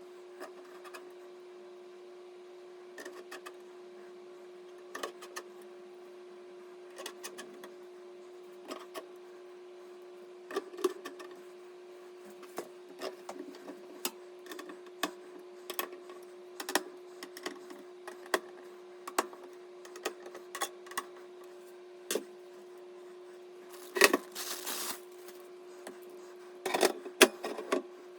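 Scattered clicks and taps of computer hardware being handled and fitted during a PC assembly, over a steady hum. Two louder bursts of clatter come near the end.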